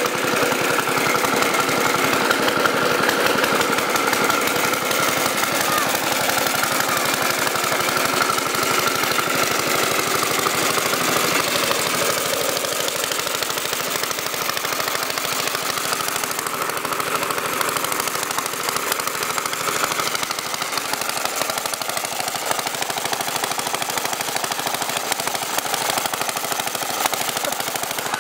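The single-cylinder engine of a 1920 Briggs & Stratton Flyer's motor wheel running with a fast, even popping beat.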